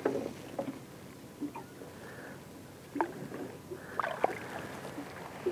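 Light water splashing and lapping against a small boat's hull as a hand lowers a small sand whiting into the water and lets it go, with a few sharp knocks about three and four seconds in.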